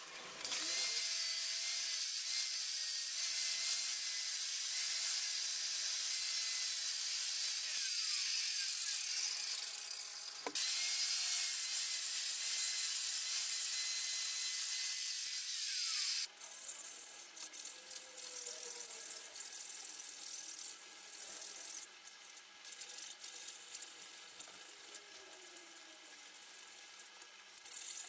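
A handheld electric power tool running at speed with a steady whine, winding down about eight seconds in and starting again a couple of seconds later, then winding down again about halfway through. The rest is quieter, irregular scraping and tool handling.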